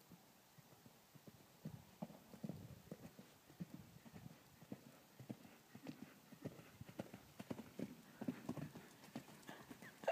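Faint hoofbeats of a ridden horse on the arena's dirt footing: soft, uneven thuds a few times a second, starting about two seconds in and coming more often toward the end.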